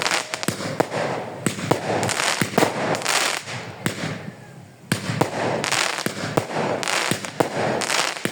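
Fireworks crackling and popping: rapid sharp cracks over bursts of hissing, easing off briefly about four seconds in, then resuming.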